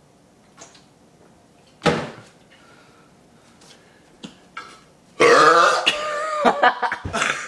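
A person forcing out a long, loud burp about five seconds in, after a shorter sound about two seconds in. A few short sounds follow near the end.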